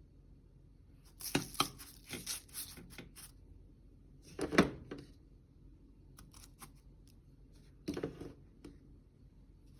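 Spoon scraping a buttery graham-cracker crumb mixture out of a bowl into a round baking pan: three short spells of scraping and crumbly rustling, about a second, four and a half seconds and eight seconds in, the middle one loudest.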